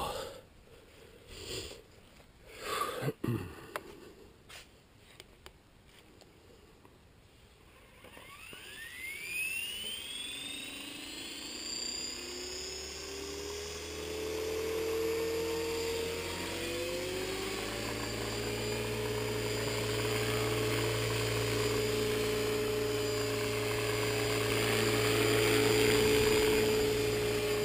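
Tarot 450 electric RC helicopter spooling up. After a few knocks, a whine from the motor and gears starts about eight seconds in and climbs in pitch as the rotor comes up to speed. It then settles into a steady whine and rotor whir that grows louder as the helicopter lifts into a low hover near the end.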